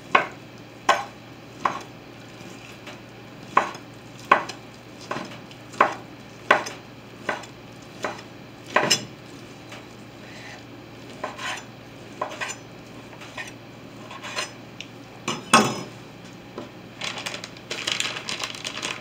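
Chef's knife chopping roasted turkey on a wooden cutting board: single knocks about one every second, sparser after about nine seconds. Near the end, a crinkly rustle as a plastic glove is pulled on.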